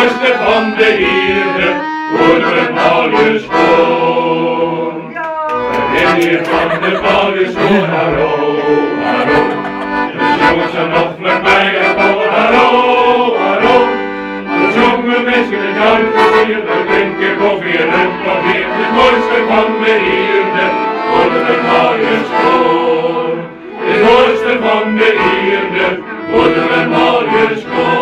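Men's choir singing together, a dense blend of men's voices with no break except a short dip between phrases.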